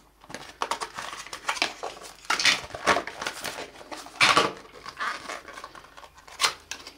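White cardboard phone packaging being handled: the inner tray lifted out and a small accessory box taken from it, with irregular scraping and rubbing of card and light knocks, two stronger scrapes a few seconds in.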